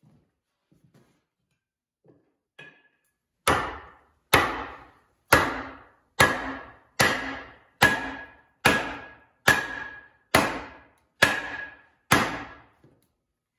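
About eleven hard metal-on-metal blows struck just under a second apart on a welded spring-steel axe head, each leaving a brief bright ring, in a strength test of the weld.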